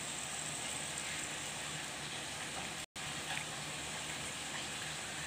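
Steady faint hiss of room and microphone noise, with a brief dropout to silence about three seconds in.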